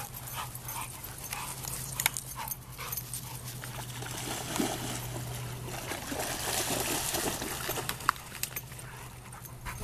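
A dog making small sounds, amid scattered short clicks and a steady low hum that stops about six seconds in.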